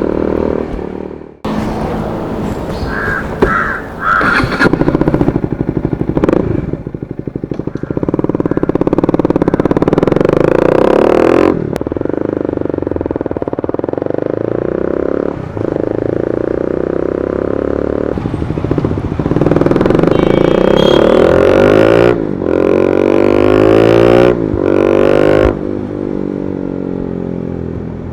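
KTM Duke 250's single-cylinder engine running loudly through an Austin Racing GP1R aftermarket exhaust, revved up and down several times.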